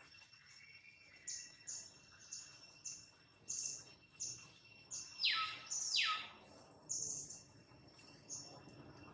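Bird calling: a series of short, high chirps, with two longer calls sweeping steeply down in pitch about five and six seconds in. A faint, steady high hum runs underneath.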